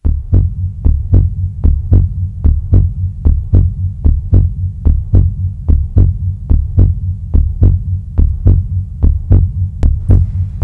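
Heartbeat sound effect: regular low thumps, a little over two a second in lub-dub fashion, over a steady low hum.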